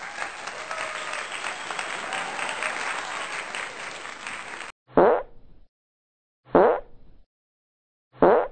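About four and a half seconds of dense crackling noise that stops abruptly. Then a short 'plop'-like sound with a quick falling pitch, repeated three times about a second and a half apart, identical each time, like an edited-in sound effect.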